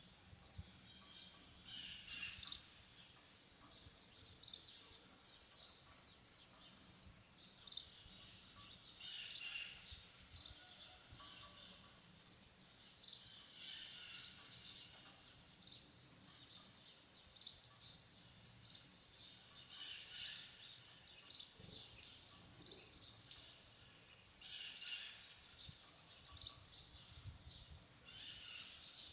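Faint birdsong: a short, high chirping phrase repeated about every five seconds, with scattered small chirps between, over a faint steady hiss.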